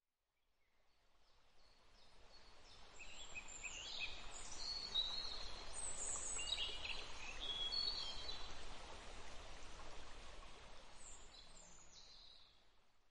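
Birds chirping and whistling over a steady low rush of outdoor ambience, fading in over the first few seconds and fading out near the end.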